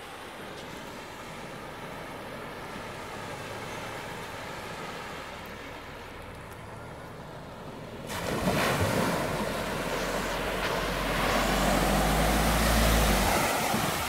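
An SUV wading through a shallow river ford: its engine hums steadily at a distance, then from about eight seconds in there is a loud rush of water spray and splashing as it pushes through the water toward the listener. Near the end the engine rumble grows loud as the car passes close by.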